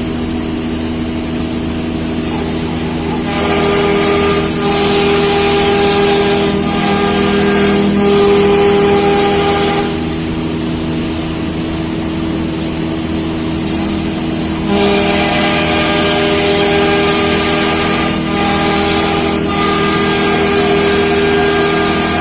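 CNC router running: a steady whine from the spindle, joined by a louder hiss of cutting from about three seconds in to about ten seconds, and again from about fifteen seconds on.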